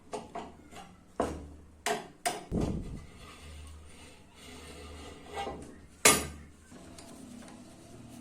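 Metal parts of a drill holder knocked and set down: a run of sharp clanks and clinks, a duller heavy thud about two and a half seconds in, and the loudest clank about six seconds in.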